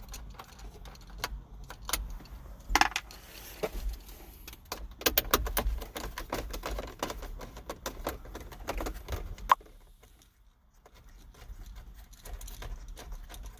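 Irregular clicks, taps and rattles of hand tools, small metal parts and plastic dashboard trim being handled and pried loose, with a lull about three quarters of the way through.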